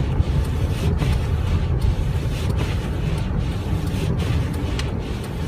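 Road and engine noise inside a car's cabin driving slowly through snow, a steady low rumble, with the turn signal ticking regularly a little under a second apart.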